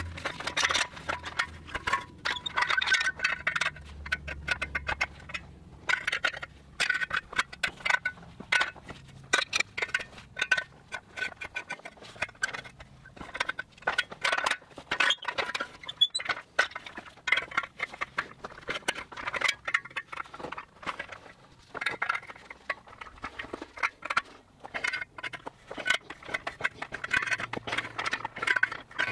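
Steel adjustable wrenches clinking and scraping against the steel flighting of an auger bit as its bent ears are levered back into shape: irregular sharp metallic clicks and knocks throughout.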